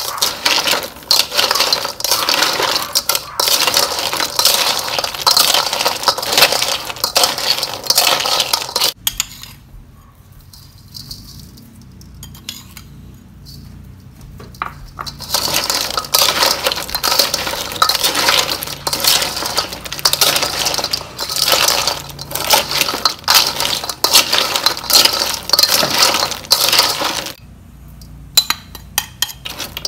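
Raw freshwater Asian clams being tossed with a metal spoon in a stainless-steel bowl, the shells clattering against each other and against the bowl in dense rattling runs. The clatter drops away for several seconds about a third of the way in and again near the end.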